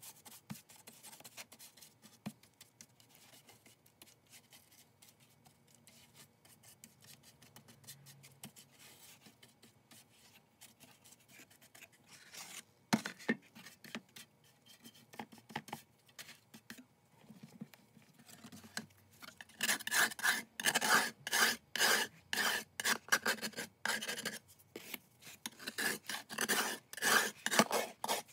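A bristle paintbrush scrubbing a wet coating over a sheet-metal tin box: faint brushing at first, then, from about two-thirds of the way in, a run of quick, louder scrubbing strokes, two or three a second.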